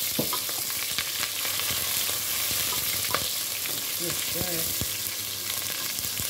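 Onion frying in oil in a pot, a steady sizzle with scattered clicks of a utensil stirring. The sizzle is hard because the pot is too hot.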